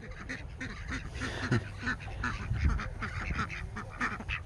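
A flock of farm poultry calling, with many short calls overlapping, several a second.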